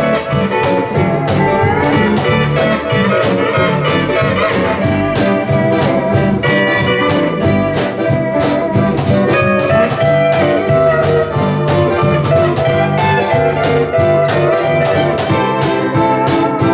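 Hawaiian instrumental music played live by a small band: Hawaiian steel guitar carrying the melody with sliding notes, over bass, ukulele, rhythm guitar and percussion keeping a steady beat.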